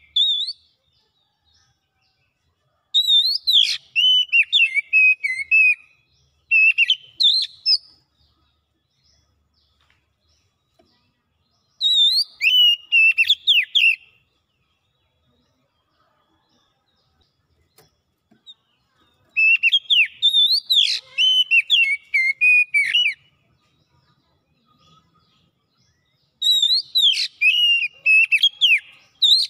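Oriental magpie-robin singing: five bursts of quick, sliding whistled notes, each one to three seconds long, with pauses of a few seconds between them.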